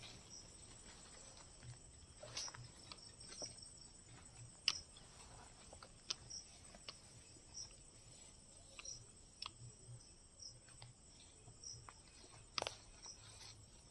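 Faint, steady high trill of crickets, with scattered soft clicks and rustles from movement through grass and undergrowth.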